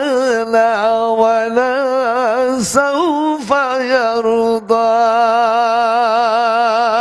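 A man's voice chanting melodically in long held notes, the pitch wavering with ornaments, with short breaks for breath a few times.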